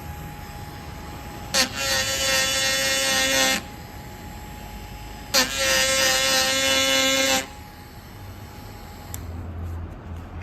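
PROXXON electric mini router switched on twice, each time starting with a sharp click and running with a steady high whine for about two seconds before stopping. A short knock near the end.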